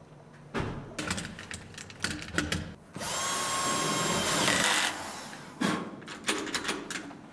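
Cordless drill-driver whirring for about two seconds as it drives screws for a mortise lock set into a door edge. Before and after it come clusters of sharp clicks and knocks from the lock hardware and screws being handled.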